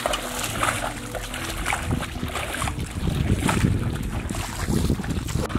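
Footsteps wading and squelching through wet mud and shallow water, irregular steps and sloshes, with wind rumbling on the microphone, heaviest in the second half.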